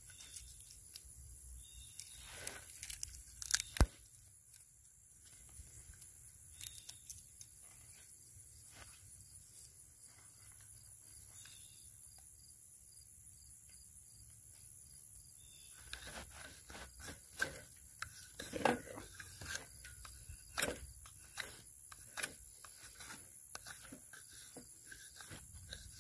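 Knife prying and scraping splinters off a pine board for tinder: wood fibres tearing and cracking. A few sharp cracks come in the first four seconds, then a quiet stretch, then a busy run of cracks and scrapes through the second half.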